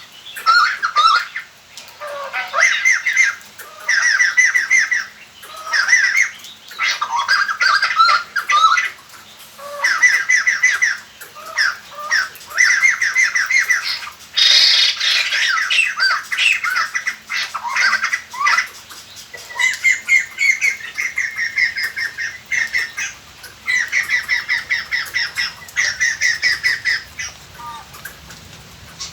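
White-crested laughingthrushes giving their loud, cackling chorus in repeated bursts of rapid chattering notes, each burst lasting a second or two with short pauses between.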